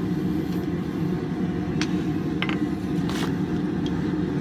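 Hand hammer striking red-hot steel bar laid over the anvil's edge, about five separate blows a little under a second apart, one with a short ring. The blows set in a mark for the axe eye. A steady low hum runs underneath.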